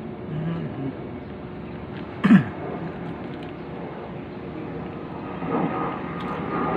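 A steady engine hum that grows louder from about five and a half seconds in. One short, loud sound falling in pitch comes about two seconds in.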